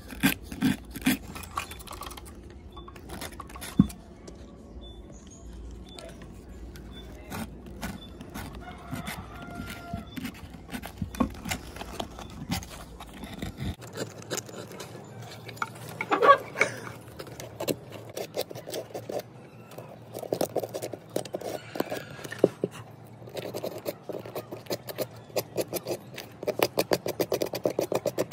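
Sandpaper scraping in quick short strokes against a car fuel pump module's electrical contacts and plastic housing.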